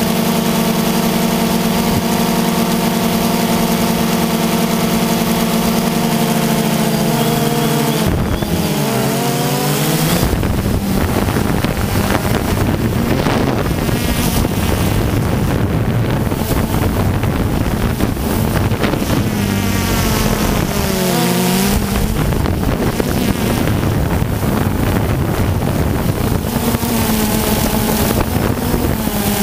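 DJI Phantom 2 quadcopter's motors and propellers buzzing, heard from the GoPro on board: a steady whine that slides up and down in pitch a quarter of the way in and again past two-thirds as the drone descends, with wind noise on the microphone.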